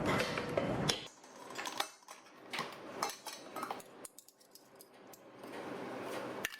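Kitchen utensils clinking and tapping on dishes in a scattered run of light clicks and knocks, after a steady noise cuts off about a second in.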